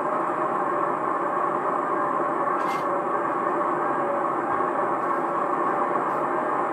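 Steady running noise of a DE10 diesel-hydraulic locomotive and its passenger train, heard from the deck of the first coach behind the locomotive, from a 1977 cassette recording. A brief high-pitched sound cuts in about two and a half seconds in.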